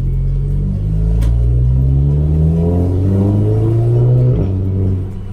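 Audi A3 engine through a 2.5-inch straight-pipe exhaust, accelerating. Its note rises steadily for about four seconds, then drops abruptly, as at a gear upshift, and carries on lower.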